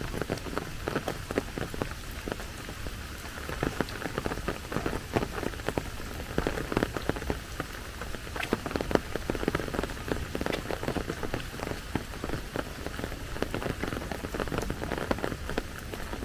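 Steady rain falling, with a dense run of close, sharp drop impacts over an even hiss.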